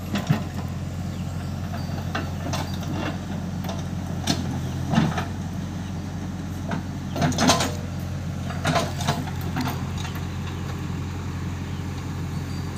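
Steady low drone of the diesel engines of a Mahindra 575 DI tractor and a JCB 3DX backhoe loader running together, with scattered metallic clanks and knocks from the loader working mud into the tipper trailer, a louder cluster about seven seconds in.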